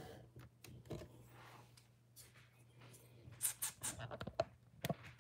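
Light taps and clicks of paper and small objects handled on a desk, a single one about a second in and a quick cluster near the end, over a faint steady low hum.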